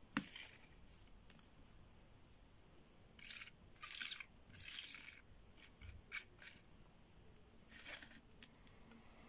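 Metal coins set down and slid across a smooth tabletop. A sharp click comes just after the start, then three short scraping slides a few seconds in, a few light clicks, and one more slide near the end.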